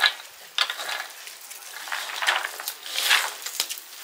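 Bare hands mixing boiled potatoes and green peas with spices in a large metal bowl: a string of irregular squelching, crunching strokes as the mixture is pressed and turned against the bowl.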